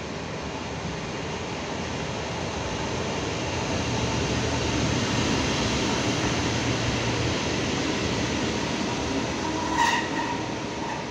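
ČD class 362 electric locomotive running light past on a shunting move, its sound swelling as it draws level. A low hum comes in from about four to seven seconds in, and a brief high-pitched squeal sounds near the end.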